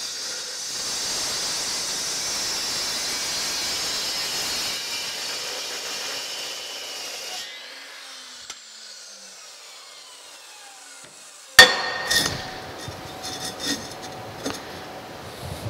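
Morse Metal Devil dry-cut metal saw cutting through steel square tubing for about seven seconds, then the blade coasting down with a falling whine. About three-quarters of the way in comes one loud metal clank, then several lighter metal clatters.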